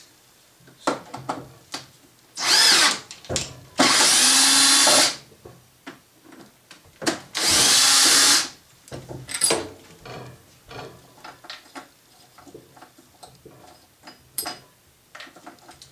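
Cordless drill-driver running in three short bursts, each about a second long, backing out the screws that hold the carrying strap on top of a small guitar practice amp. Light clicks and handling knocks come in between.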